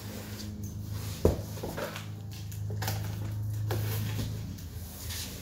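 Cardboard box being opened by hand: flaps folded back and the contents handled, with rustling and a sharp knock about a second in, over a steady low hum.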